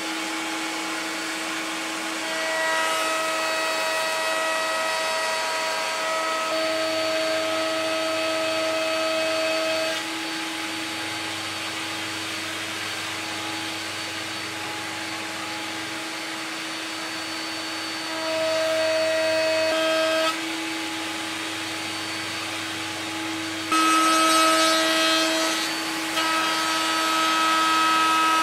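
Table-mounted router running at speed with a steady high whine, cutting ash boards fed along its fence; it grows louder with added higher tones several times as the bit bites into the wood.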